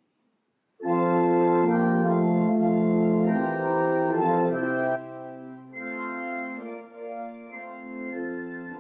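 Church organ starts playing the final hymn about a second in, with loud sustained chords that drop to a softer passage about halfway through.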